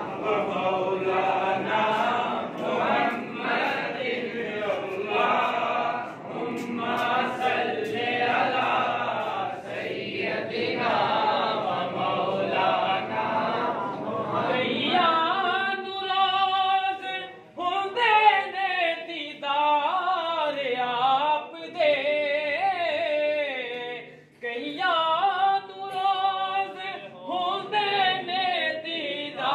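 Several men's voices chanting together in devotional recitation. About halfway through, a single male voice carries the melodic chant on its own, with short pauses for breath.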